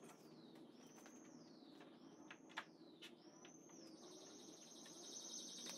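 Near silence with faint, high bird chirps that rise and then fall, repeating about once a second, and a few faint clicks. From about four seconds in a steady, high, pulsing trill sets in.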